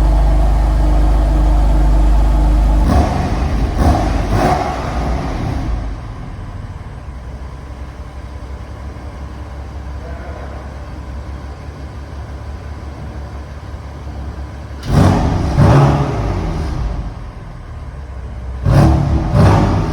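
BMW M4 Competition's twin-turbo straight-six on its stock exhaust, on a cold start: a loud steady drone at high idle, a few short blips, then a quieter, steady idle from about six seconds in. Two quick rev blips come near the end.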